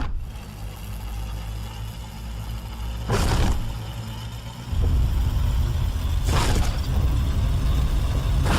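A vehicle engine running with a steady low rumble that gets louder about five seconds in. Two short hissing bursts cut across it, about three seconds in and again about six and a half seconds in.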